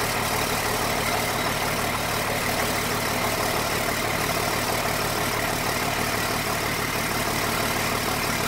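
An LMTV military truck's Caterpillar 3116 diesel engine idling steadily.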